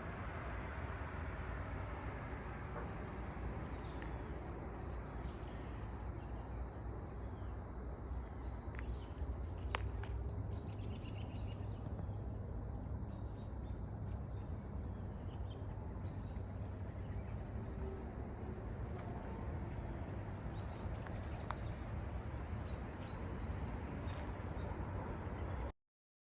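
Crickets trilling in a steady, unbroken chorus, with a low rumble underneath and a single sharp click about ten seconds in; the sound cuts off suddenly near the end.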